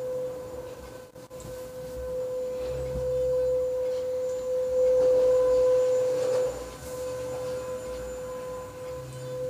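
A steady, unwavering mid-pitched tone held throughout, with a brief dropout about a second in and a little louder around the middle.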